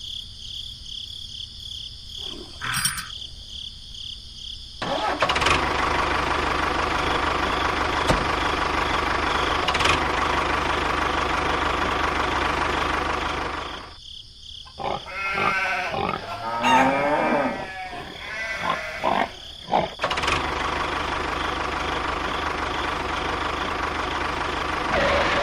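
Small electric motor of a homemade mini tractor running steadily, starting about five seconds in after crickets chirping. It stops for a few seconds in the middle while animal calls rise and fall, then runs again.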